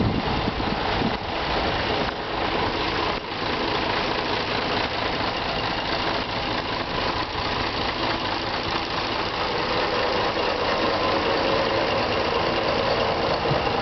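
A city bus's engine idling at the kerb, heard close by and growing a little louder near the end.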